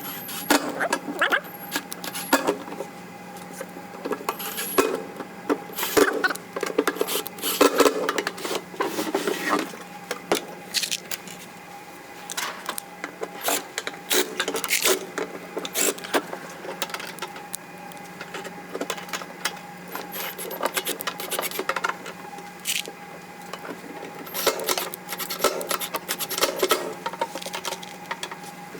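Irregular clicks, taps and rattles of hand work with small parts and tools, over a steady faint hum.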